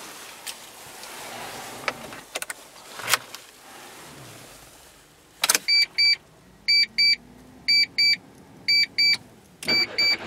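Mitsubishi Colt's dashboard warning chime, sounding double beeps about once a second, after a few sharp clicks in the cabin. Near the end, the starter begins cranking the engine.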